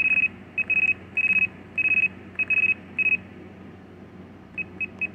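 RadioMaster TX16S radio transmitter beeping as its menu list is scrolled: a high single-tone beep, short and longer beeps in quick succession for about three seconds, then a few brief blips near the end.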